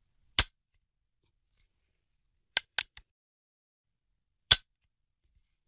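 Five short, sharp click sound effects from an animated logo intro, with dead silence between them. One comes just after the start, a quick run of three follows about two seconds later, and a last one comes near the end.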